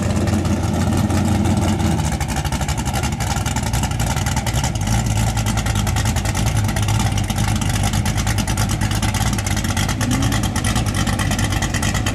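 1989 Ford Mustang LX coupe drag car's naturally aspirated engine idling loud and steady with a rapid, even pulsing while the car sits at the drag strip's starting line.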